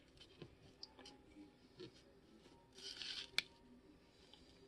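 Near silence with faint handling sounds: a few small taps, a brief soft scrape about three seconds in and a sharp click right after, as the end of a ferro rod is dabbed and worked into wet epoxy on a piece of cardboard.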